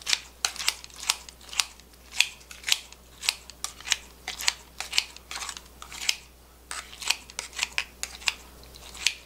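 Kitchen scissors snipping kimchi inside a stainless steel cup, a steady run of short, sharp snips about two to three a second.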